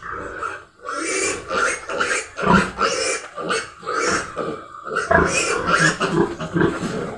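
A 15-day-old piglet squealing over and over in short, rapid cries, two to three a second, while it is held upside down by its hind legs for an iron injection.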